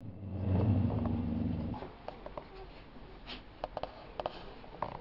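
A dog's low rumbling grunt for nearly two seconds, followed by scattered short faint squeaks and clicks from a litter of young puppies nursing.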